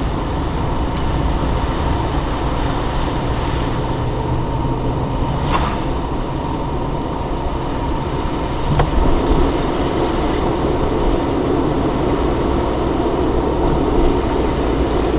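Steady rumble of engine and tyre noise inside a moving car's cabin, as picked up by a dashcam's built-in microphone. There is a single sharp click about nine seconds in.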